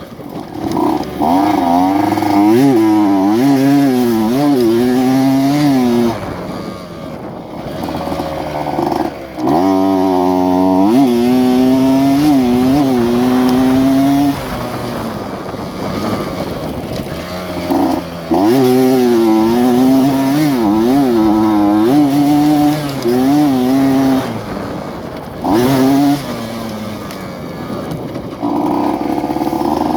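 Modified two-stroke underbone motorcycle with a Yamaha F1ZR engine being ridden, its howl climbing and falling in pitch again and again as it revs up and drops back. The throttle eases off for a few seconds three times, at about six, fourteen and twenty-four seconds in.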